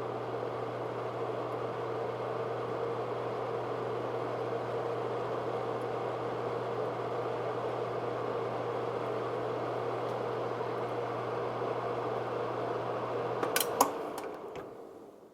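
Electric fan heater running with a steady hum and whir. Near the end it is switched off with a few sharp clicks, and the hum stops while the fan noise fades away over a couple of seconds.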